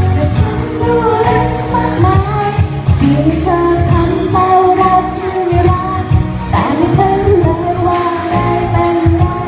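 A woman singing a Thai pop song live into a handheld microphone over backing music with a steady beat.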